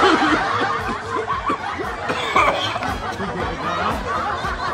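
Snickering laughter: short laughs following one another with no pause.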